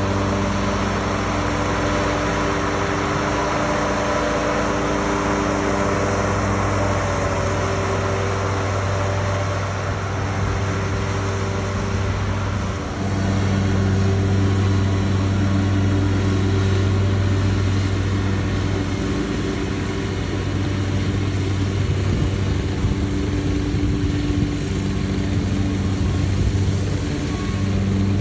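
Lawn mower engine running steadily while mowing, with a brief dip in level a little under halfway through before it comes back slightly louder.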